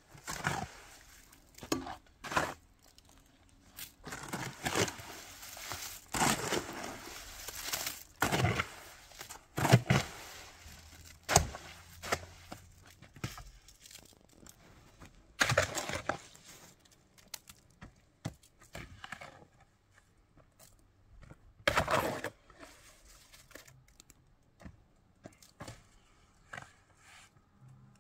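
Irregular crackling, tearing and cracking noises at uneven intervals, with quiet gaps between them, like hands working with brittle or crinkly material.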